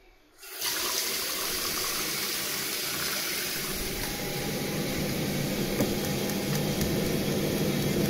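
Hot-water tap opened, water running steadily into a stainless steel sink, starting suddenly about half a second in.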